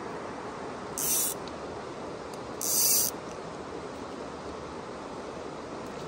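A fly reel buzzing twice as line is pulled off it, a short pull about a second in and a longer one just under three seconds in, over the steady rush of river water around a drifting rowboat.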